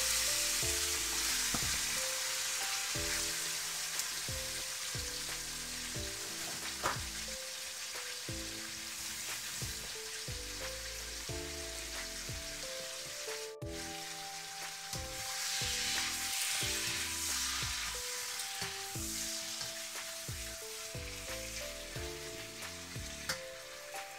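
Raw chicken pieces sizzling as they fry in hot oil in a wok. The sizzle is loudest at the start, eases off, then swells again about fifteen seconds in.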